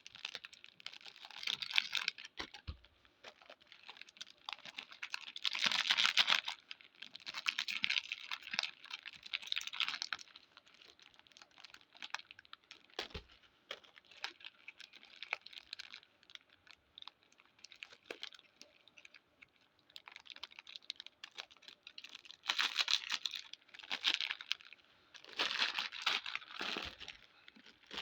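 Plastic biscuit packets crinkling, rustling and tearing as they are handled and opened, in irregular crackly bursts with lulls between them.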